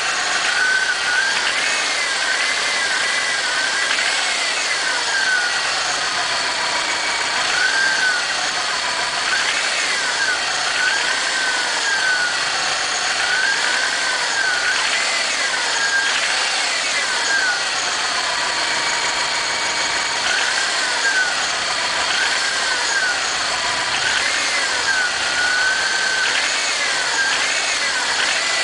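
Subaru EJ251 2.5-litre flat-four engine running and being revved in repeated short blips, its pitch rising and falling every two to three seconds.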